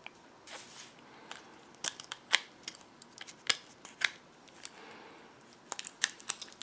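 Handling noise from an opened smartwatch being turned over in the hands: irregular sharp clicks and ticks from its case and strap, with a few soft rubbing sounds between them.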